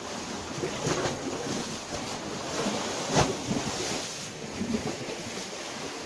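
Sea waves washing against the shore, with wind buffeting the microphone. A brief thump comes a little after three seconds in.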